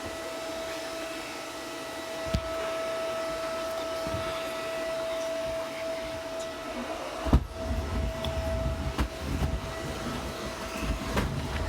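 Vacuum cleaner running with a steady whine. There is a knock about two seconds in and a louder thump about seven seconds in, after which uneven low rumbling joins the whine.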